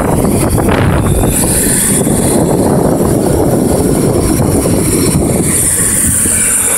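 Caterpillar 329D hydraulic excavator's diesel engine running steadily and loudly.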